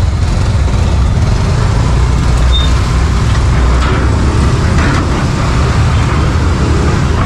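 Motorcycle and scooter engines running at close range as two-wheelers move off together: a loud, steady low rumble with traffic noise over it.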